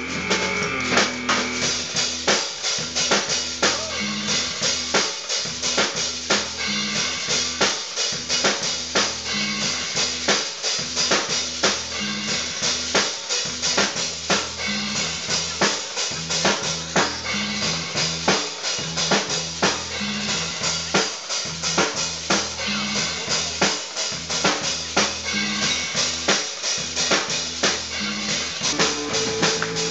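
A robot drummer playing an acoustic Pearl drum kit: a steady, busy beat of bass drum, snare, rimshots and cymbals, over a repeating low bass line.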